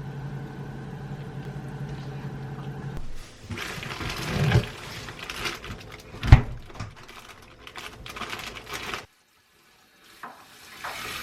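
Water running from a kitchen tap with handling sounds as something is rinsed, after a steady hum for the first three seconds; a sharp knock about six seconds in, and the water cuts off suddenly near nine seconds.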